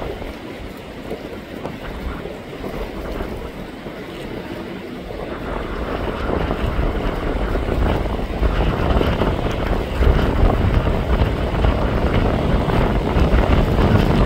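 Gusty wind buffeting the microphone, under the rumble of a Boeing 777 jet airliner on final approach. The rumble grows louder from about five seconds in as the plane nears.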